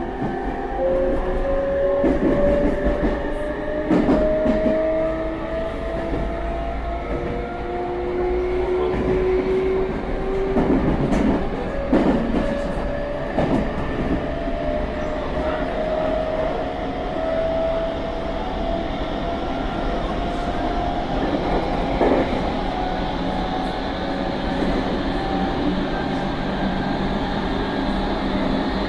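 Meitetsu 3500 series electric train running, its GTO-VVVF inverter whine climbing slowly in pitch as the train gathers speed, several times dropping back and climbing again. A few wheel knocks over rail joints are heard along the way.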